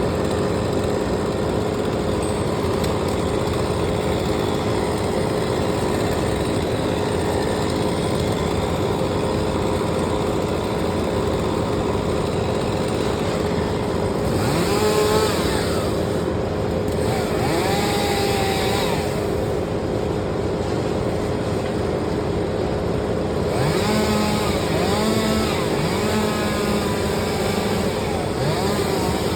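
A small engine running steadily, with two short stretches of sounds that bend in pitch, about halfway through and again near the end.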